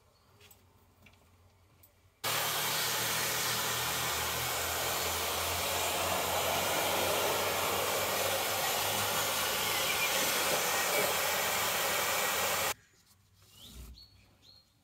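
A handheld electric hot-air blower switches on about two seconds in, runs steadily with a loud rush of air over a low motor hum, and cuts off suddenly near the end. It is heating freshly applied stickers to activate their adhesive.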